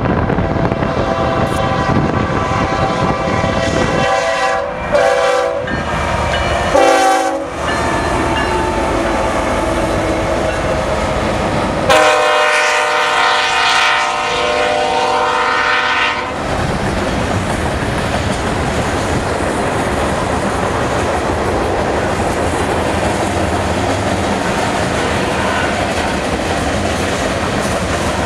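Diesel freight train's air horn sounding for a grade crossing: short blasts about four to seven seconds in, then one long blast of about four seconds near the middle, as the lead locomotives pass. After that, the train rolls past, its wheels clicking over the rail joints. Heavy wind noise on the microphone runs under it all.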